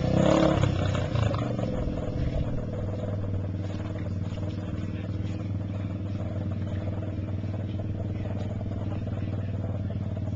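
Small youth ATV engine running, growing fainter over the first two to three seconds as it moves off, then a steady low engine idle that holds to the end.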